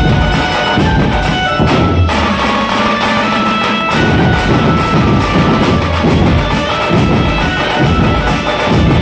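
Dhumal band music: a troupe of large drums beaten together in a steady rhythm under a sustained amplified melody line.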